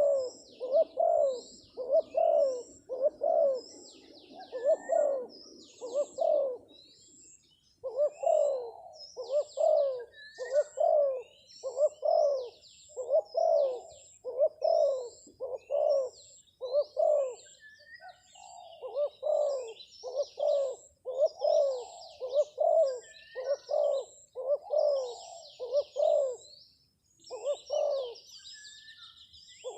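Spotted dove (terkukur) cooing in a long run of short, quick coos, each dipping in pitch, with brief pauses about seven seconds in and near the end; this is the coaxing call meant to draw other doves down. Smaller birds chirp faintly and high above it.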